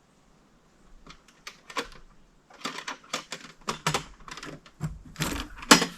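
A run of irregular clicks and knocks, sparse at first and growing louder and closer together towards the end, with the loudest knock just before the end.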